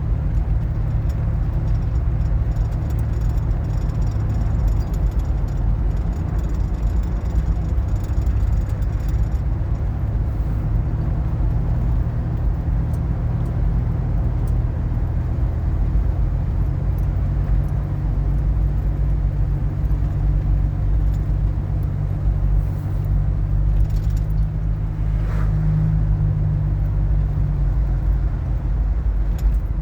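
Car driving: steady low engine and road rumble with no breaks.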